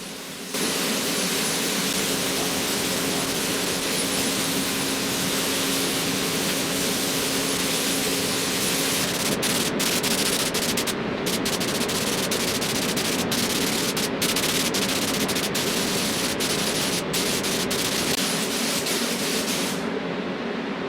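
Paint spraying onto the engine casings for a matte silver finish: a steady spray hiss with a low even hum beneath it, broken by a few very short pauses in the second half and stopping shortly before the end.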